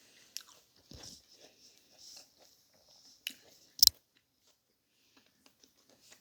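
A person biting and chewing food, with scattered crunches and one sharp, louder snap about two-thirds of the way through.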